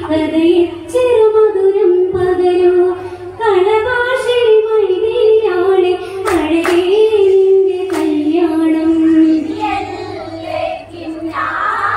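Women singing an Onamkali song in Malayalam, a continuous melody line that rises and falls, with a few sharp hand claps about halfway through.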